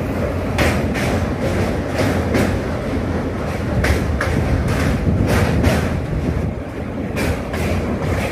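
Passenger train running across a steel truss rail bridge, heard from inside the carriage: a steady low rumble with repeated sharp wheel clacks, often in pairs.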